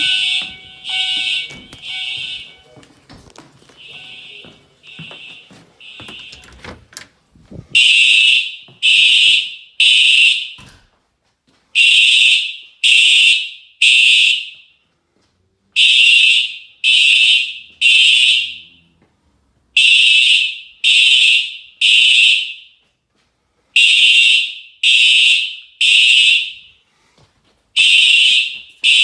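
Simplex fire alarm horns sounding the temporal-three evacuation pattern during a system test: three high-pitched blasts about a second apart, a short pause, then again. Fainter for the first seven seconds, then much louder.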